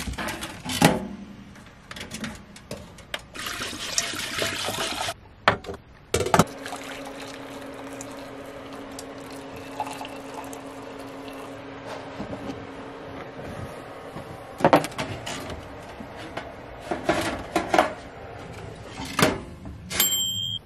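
Hot water poured from a kettle into ceramic mugs, a steady filling pour lasting several seconds. Around it come kitchen clatter and clicks from a toaster oven's door, tray and knob, and a short bell ding near the end.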